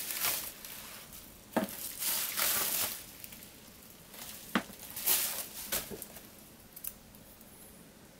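Small metal paint tins being handled and set down on a table: a few sharp knocks, the loudest about one and a half and four and a half seconds in, among bursts of rustling.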